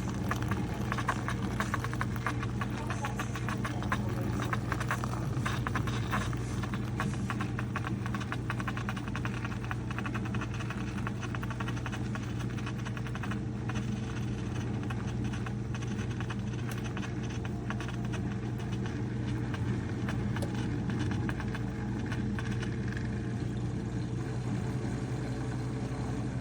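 Single-serve K-pod coffee maker running a brew: a steady low electric hum from its pump with constant crackling clicks over it.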